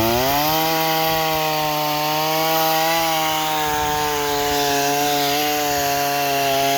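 Small pull-start Ryobi gasoline chainsaw revved up to full throttle and held there, cutting wood, its pitch sagging slightly under the load of the cut.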